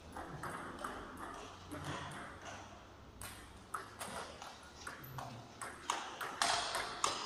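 Table tennis ball clicking off bats and table during a rally: a quick, irregular run of sharp clicks, loudest near the end.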